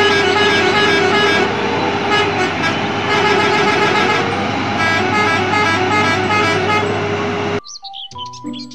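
Heavy off-road dump truck running, with a steady horn tone held over the engine sound; it cuts off abruptly about seven and a half seconds in.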